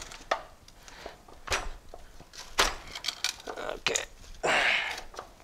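Metal hand tools and parts clinking and knocking against the ATV's frame and front differential: about five sharp clanks, then a short rasping scrape about four and a half seconds in.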